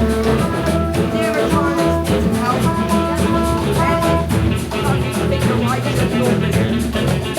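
Upbeat jazz-style band music with a drum kit and guitar, with some singing.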